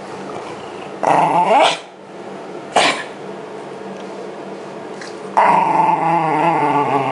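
Shiba Inu growling at the hand that is brushing it: a short wavering growl about a second in, a single sharp click near three seconds, then a long growl from about five and a half seconds on.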